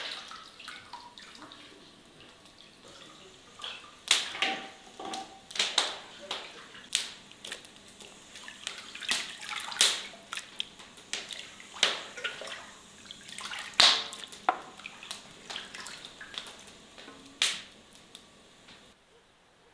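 Water splashing and dripping as raw chicken legs are washed by hand in a metal basin. A short run of water fades in the first second, then come irregular sharp splashes and drips every half second or so, until near the end.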